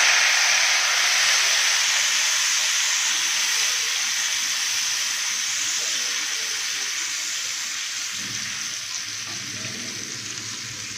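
Garlic-ginger paste and turmeric in hot oil on an iron tawa, sizzling hard with a little water just added. The hiss is loudest at first and slowly dies down as the water boils off.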